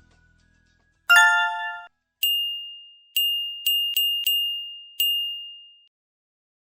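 Electronic chimes: a short bright chord about a second in, then six single high dings at uneven intervals, each ringing out and fading.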